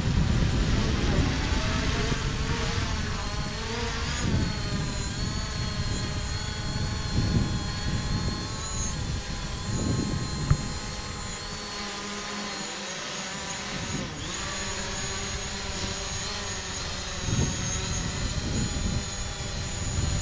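DJI Mavic Pro quadcopter's propellers whining in flight, the pitch of the tones shifting up and down as it manoeuvres and comes down low over the grass. Wind rumbles on the microphone at first.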